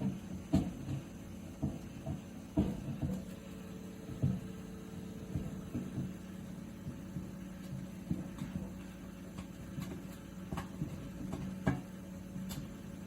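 Toshiba inverter microwave oven running with a steady hum, broken by irregular bumping knocks every second or so, the odd noise its owner has heard whenever it is on.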